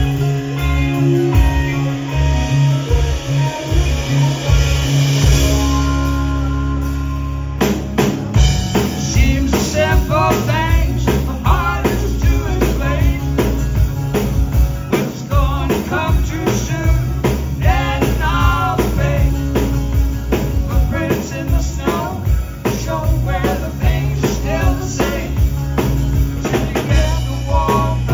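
Live rock band playing a blues-rock song: drums, bass, electric and acoustic guitars and Hammond organ. A held chord rings for the first several seconds, then the full band comes back in on the beat about eight seconds in, with a bending, wavering lead line over it.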